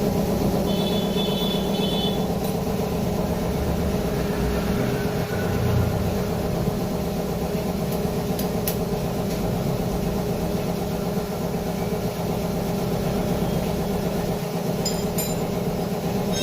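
Workshop air compressor running steadily, its piston pump chugging in a fast, even pulse. A few light clicks about 8 seconds in and near the end.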